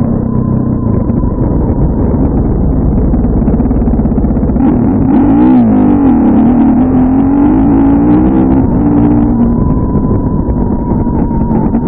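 Dirt bike engine running along at a steady speed, dipping in pitch about five seconds in as the throttle is eased off, then rising again as it accelerates. The sound is dull and muffled, its highs cut away by wind-noise filtering.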